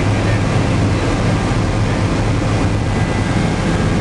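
Bell 206 JetRanger helicopter heard from inside the cabin in flight: a steady, loud drone of its turbine engine and rotors with a strong low hum.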